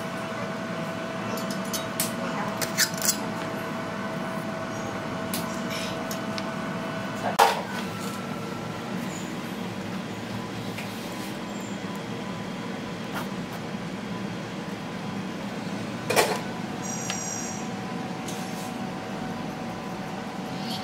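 A steady background hum with a faint steady tone, broken by a few small clicks and two sharper clicks, one about seven and a half seconds in and one about sixteen seconds in.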